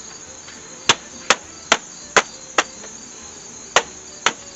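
A series of sharp knocks: five in quick succession, a pause, then two more. Crickets chirp steadily underneath.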